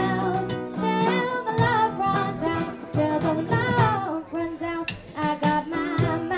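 Live band music: a young girl singing the lead melody over strummed acoustic guitar, ukulele, bass guitar and drums keeping a steady beat.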